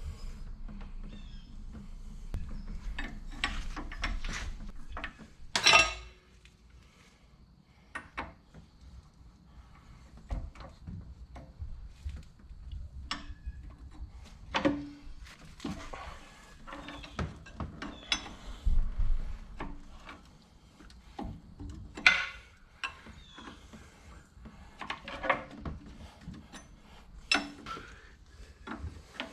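Intermittent metallic clanks, knocks and scrapes of hand tools on steel machine parts while a hydraulic cylinder is being taken off a skid steer. There is a loud ringing clank about six seconds in. A low rumble runs underneath until then.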